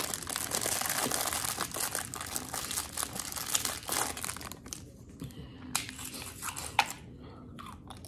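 Clear plastic fortune cookie wrapper crinkling as it is torn and peeled off. After about four and a half seconds, a few separate sharp snaps as the cookie is broken open.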